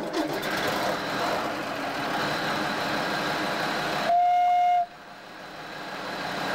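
Diesel engine of an LKM V10C narrow-gauge locomotive running just after being started. About four seconds in, one short, loud, steady horn blast.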